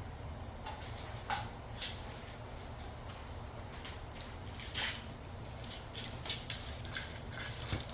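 Scattered light clicks and rustles of small objects being handled, about a dozen in all with a cluster near the end, over a steady low hum.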